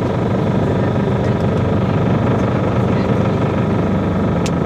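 The engine of a Thai long-tail boat running steadily under way, loud and close.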